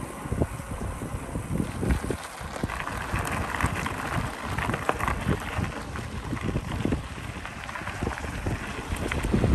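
Wind buffeting the microphone of a camera on a moving mountain bike, with the crackle of tyres rolling over a gravel trail and small rattles of the bike. The crackle grows denser for a few seconds in the middle.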